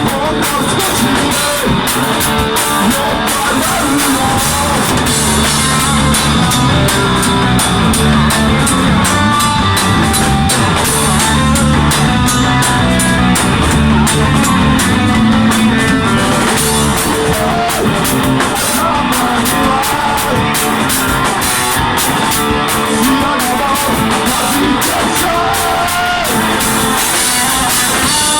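Rock band playing a song: drum kit, guitar and singing.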